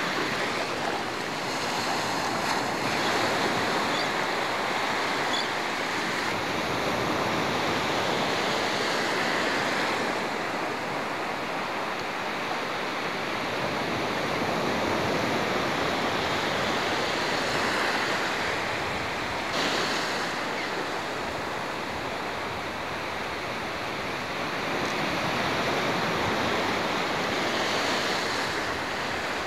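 Small surf washing onto a sandy beach: a steady rush of breaking water that swells and eases every several seconds.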